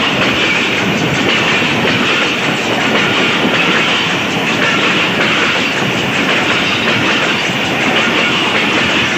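Passenger coaches passing at close range, their steel wheels running over the rails with a steady, loud clatter and rumble.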